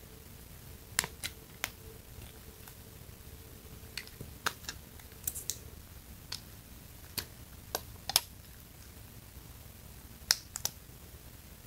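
Irregular sharp clicks and taps, a dozen or so spread unevenly, as fingers pry and tug at the edges of a clear TPU case stuck tight on a phone.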